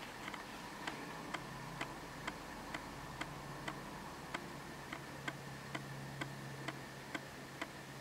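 Steady, even ticking, about two ticks a second, over a faint low hum.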